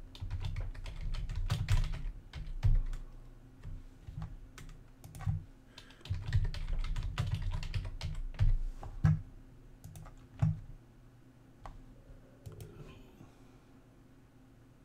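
Typing on a computer keyboard: two quick runs of keystrokes, then a few scattered single clicks that grow sparse and faint near the end.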